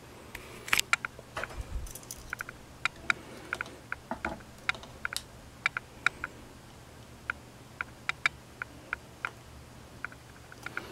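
Handling noise: scattered light clicks and taps at an irregular pace while a digital thermometer is held against the stopped motor on its test stand, over a faint steady low hum.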